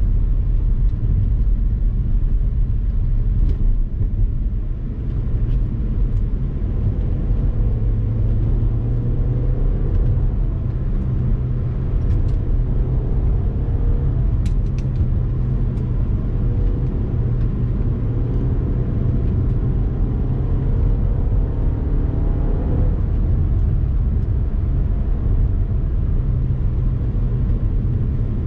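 A car driving on a winding road under a steady, heavy low rumble. The engine note rises and falls faintly as the car speeds up and slows down.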